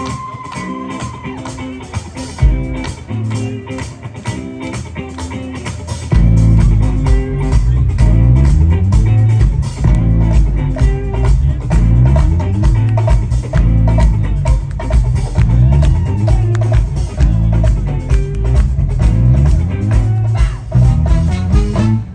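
Live band playing an instrumental passage, led by guitar and drums. About six seconds in, the bass and the full band come in and the music gets much louder.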